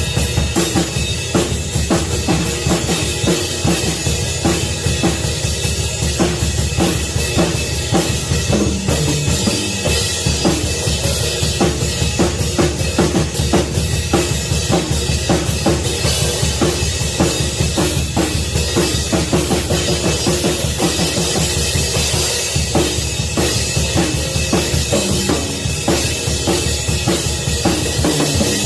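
Drum kit played continuously in a steady groove, bass drum and snare strokes in quick succession with no break.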